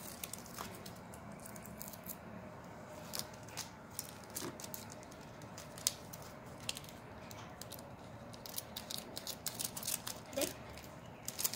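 Scissors snipping through a thin clear plastic bag, with crisp crinkling of the plastic; the snips and rustles come more thickly in the last few seconds as the bag is cut open.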